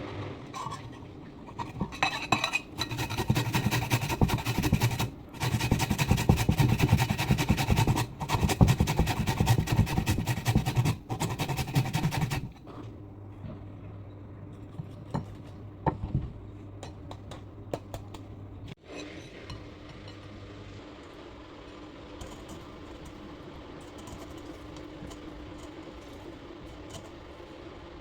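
A metal spoon clinking and scraping rapidly against a cup for about ten seconds, as in stirring, then a few scattered clinks over a low steady hum.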